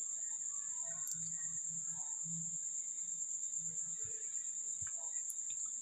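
Faint soft cloth handling as a cloth is unwrapped from pressed homemade paneer, under a steady high-pitched tone.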